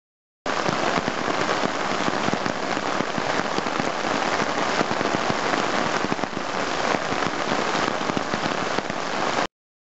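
Heavy rain pattering and splashing on a wet brick sidewalk, with water spattering down from a roof edge. It is a dense, steady patter that starts abruptly about half a second in and cuts off just before the end.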